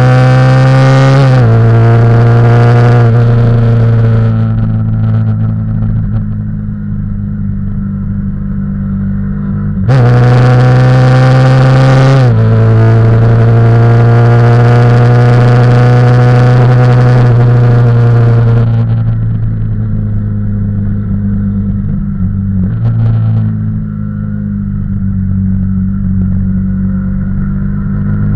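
Yamaha YZF-R15's single-cylinder four-stroke engine under hard acceleration, its pitch climbing and then dropping abruptly at each upshift, with wind rush over the bike. It goes quieter and lower off the throttle for corners, opens up sharply again about ten seconds in, and eases off once more after about eighteen seconds.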